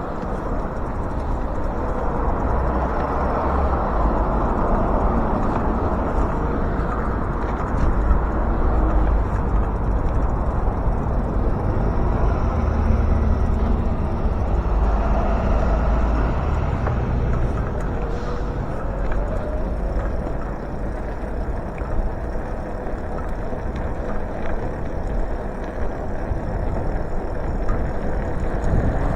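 Steady rush of wind and road noise on the move during a bicycle ride, low and continuous throughout.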